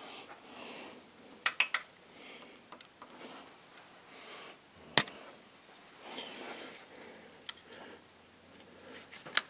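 Scattered sharp metallic clicks and light taps of a steel feeler gauge and hands working against the rocker arms and valve stems of an International Harvester four-cylinder tractor engine as the valve clearance is checked, with soft handling rustle in between. A few clicks come close together about a second and a half in, a single sharp one comes about halfway, and a few more come near the end.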